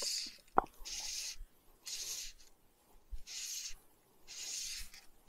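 Fly line being stripped in by hand through the rod guides, a rasping hiss with each pull, about once a second, as the fly is retrieved. A single short squeak sounds about half a second in.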